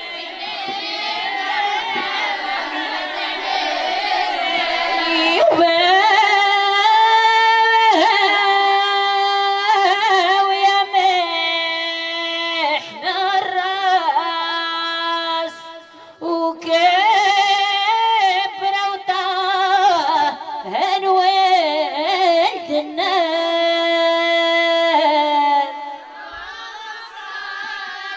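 A woman's voice singing a Jbala 'aadiya, the unaccompanied wedding chant of northern Morocco's henna night. It holds long, slowly bending notes with short breaks, then drops away about three seconds before the end.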